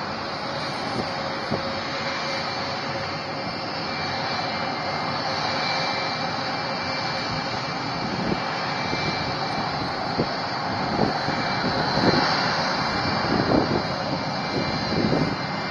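Jet engines of a Rockwell B-1B Lancer, four General Electric F101 turbofans, running as the bomber rolls along the runway: a steady jet roar with a whine, getting louder and picking up a ragged crackle from about halfway through.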